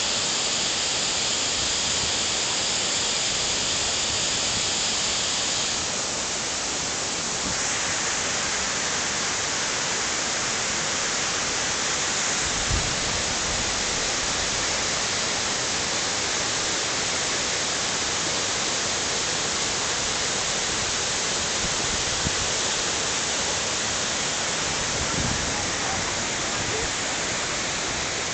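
Tiered waterfall: a steady, dense rush of falling water, its hiss shifting a little about six seconds in. A few faint low thumps sound beneath it.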